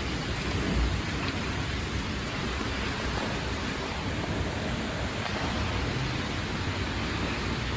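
Steady rushing noise of severe-storm wind and rain, with a slightly stronger gust about a second in.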